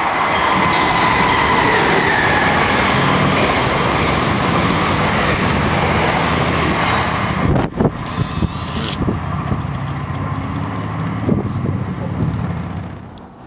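MARC Penn Line passenger train, an HHP-8 electric locomotive with bilevel coaches, rolling past close by: a steady rumble of wheels on rail with a high whine that dips slightly in pitch over the first few seconds. The sound breaks off sharply about halfway in, then train noise goes on and fades near the end.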